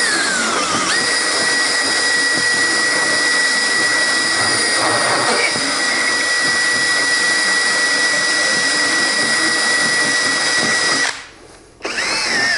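Makita 18V cordless drill running on high speed with a round solid carbide burr, reaming out a small knot hole in wood: a high whine over a grinding noise. The pitch wavers for about the first second, then holds steady until the drill stops about eleven seconds in, and it starts again briefly just before the end.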